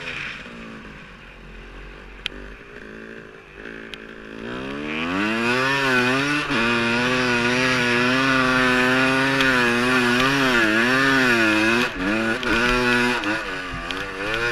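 Snow bike's dirt-bike engine running low for a few seconds, then revving up about four and a half seconds in and held at high revs under load, the pitch wavering as the throttle is worked. Near the end the revs drop sharply and come back in quick rises and falls.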